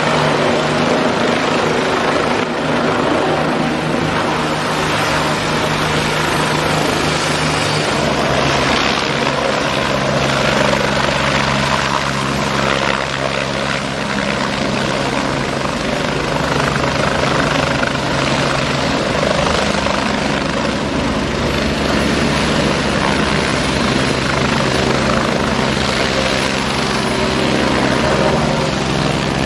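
Turbine helicopters running close by, steady rotor and turbine noise throughout, with an abrupt change in the sound about eight seconds in.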